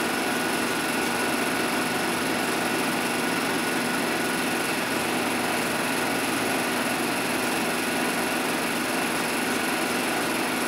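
Steady hiss and hum from a 16mm film projection, with faint constant tones and no narration or music.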